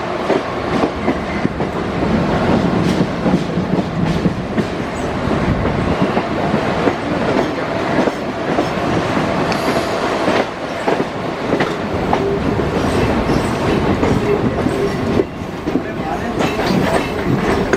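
Train coaches rolling past, their wheels clattering steadily over rail joints.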